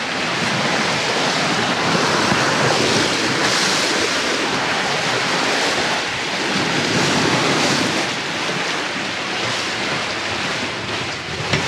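Steady rush of sea water along the hulls of a sailing catamaran under way, with wind on the microphone. The noise swells and eases a little but stays steady, with no engine or distinct knocks.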